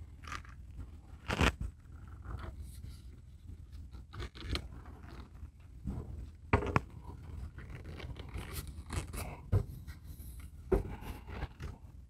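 Metal RV awning arm and its fittings clicking, knocking and scraping as they are worked by hand, with a few sharper knocks scattered through, the loudest about a second and a half in and about six and a half seconds in.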